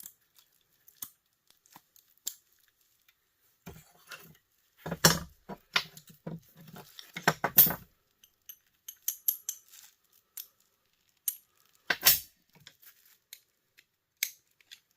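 Hand tools clinking and knocking against small metal parts while a small aluminum piece is pried out of a scrapped electric heater. The clicks are irregular, with louder clusters of knocks about five, seven and twelve seconds in.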